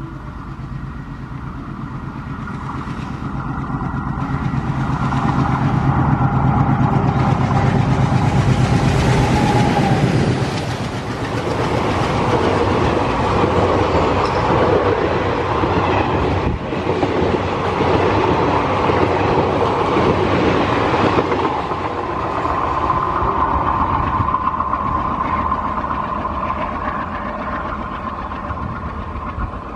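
An Indian Railways WDM-3A diesel-electric locomotive (an ALCO design) passes with its engine running, growing louder over the first ten seconds. The passenger coaches then clatter past over the rail joints as the train moves away, with a steady high tone in the last several seconds.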